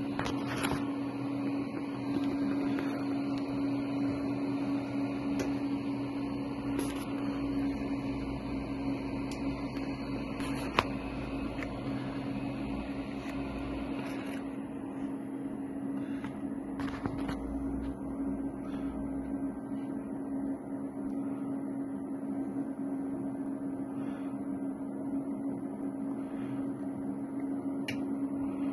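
A steady machine hum, holding one low tone throughout, with a single sharp click about eleven seconds in.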